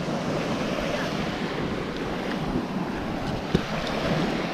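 Steady surf and wind noise buffeting the microphone on an open beach, with one brief click about three and a half seconds in.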